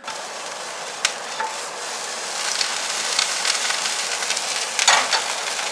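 Thin pancake batter sizzling in a hot non-stick pan, starting suddenly as the batter hits the pan and growing a little louder. A sharp click about a second in and a louder crackle near the end stand out over the steady hiss.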